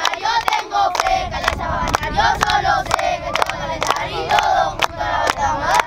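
A group of boys chanting and shouting a team cheer together, with rhythmic hand claps running through it.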